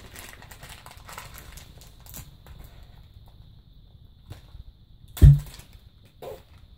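Small clear plastic toy packet crinkling and rustling as it is bitten and torn open, with a single loud thump about five seconds in.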